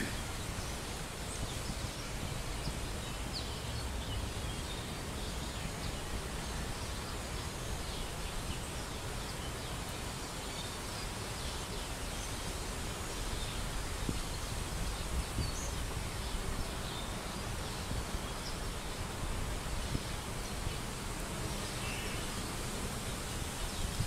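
Steady outdoor park ambience: a constant wash of noise with a low rumble underneath, and a few short, faint bird chirps now and then.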